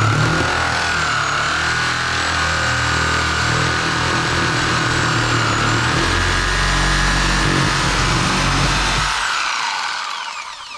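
High-speed electric power tool running steadily with a high whine, then switched off about ten seconds in, its pitch falling as it spins down.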